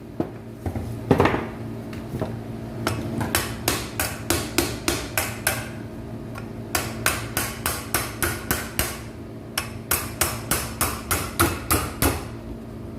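Hammer tapping the locking tabs of a window air conditioner's fan motor casing closed: sharp strikes in runs of about two to three a second, with a heavier blow about a second in and short pauses between the runs.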